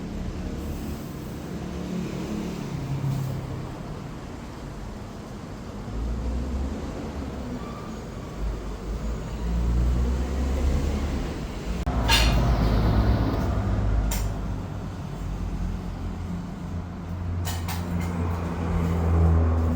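An engine running, its note rising and falling unevenly, with a loud hiss about twelve seconds in and a few sharp clicks near the end.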